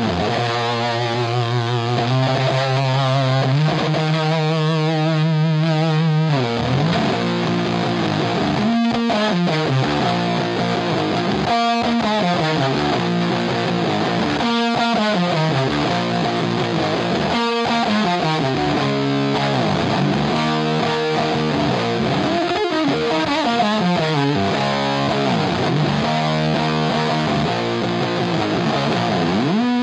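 Electric guitar played through a 15-watt Rola Balch 15 amplifier head: held chords and notes that waver in pitch for the first few seconds, then phrases of notes with short breaks between them.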